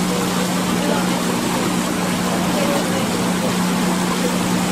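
Boat engine running steadily, a constant low hum over an even hiss.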